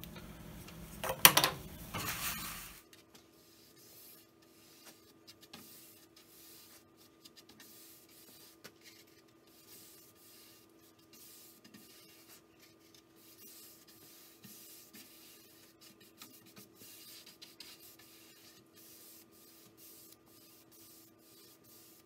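A stick stirring tinted shellac in a small ceramic bowl, with a sharp clink about a second in. The sound then drops abruptly to faint brushing of shellac across a wooden shelf over a steady faint hum.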